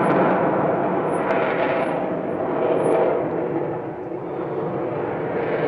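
F-22 Raptor's twin afterburning turbofan engines heard in flight as a continuous rushing jet rumble. The sound fades somewhat about four seconds in and swells again near the end as the fighter manoeuvres.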